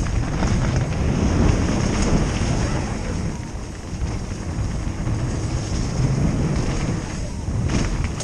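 Wind buffeting the helmet camera's microphone over the tyres of a mountain bike running fast down a dirt singletrack, with short knocks and rattles from the bike over bumps.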